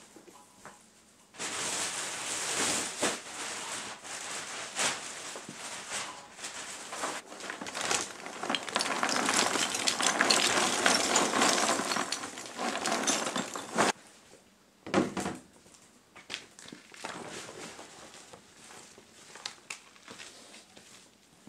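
Small pieces of charcoal clattering and crackling continuously for about twelve seconds as they pour into a plastic bag. They stop suddenly, followed by a single knock and a few scattered light clicks.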